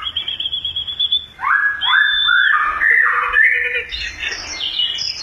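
Caged songbird singing: a quick trill of about ten rapid high notes, then a run of varied, loud whistled phrases, many sliding downward.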